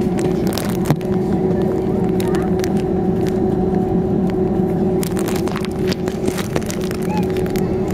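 Cabin noise inside a Boeing 767-300ER on the ground before takeoff: the engines' steady hum at low power with a constant droning tone. Scattered light clicks and knocks sound over it.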